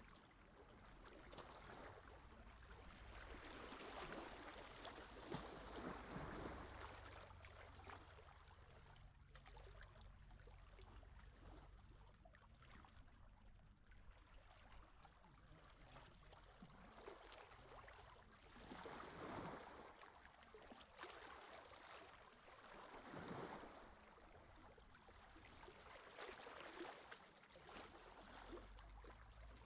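Small sea waves washing up on a beach and draining back, each swelling and fading away at irregular intervals. The sound is quiet, over a low steady rumble.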